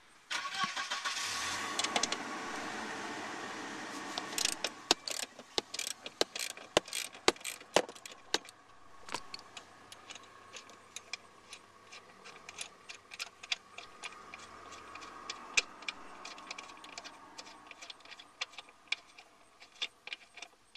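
Socket ratchet clicking in quick, irregular strokes as a 14 mm seat-mount bolt is backed out. It opens with a few seconds of dense rasping close by before the separate clicks begin.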